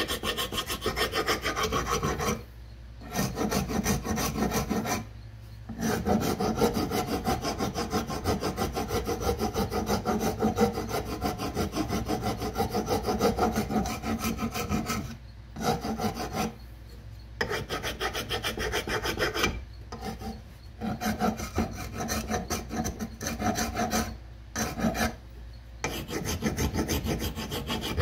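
A hand file rasping the top end of a wooden axe handle in quick back-and-forth strokes, stopping briefly every few seconds, as the handle is shaped to fit the axe head's eye.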